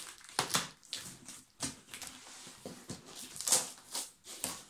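Cardboard box being opened by hand: packing tape slit and torn, and flaps scraped and pulled. It comes as irregular scrapes and rustles, the loudest about half a second in and again near the end.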